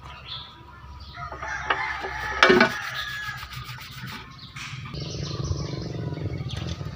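Metal scraping and clanking as the valve cover is set down onto the cylinder head of a Caterpillar D3 engine under reassembly, with one loud clank about two and a half seconds in. From about five seconds in a steady engine drone runs underneath.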